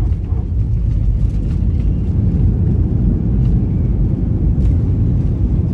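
Steady low rumble heard from inside an airliner's cabin during the landing roll after touchdown: engine and runway noise as the aircraft slows with its ground spoilers raised.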